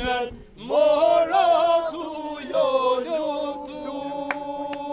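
A group of men singing unaccompanied in the Albanian polyphonic style: a lead voice moves over the group's drone, which settles on one steady held note about three seconds in. A few sharp claps come in near the end.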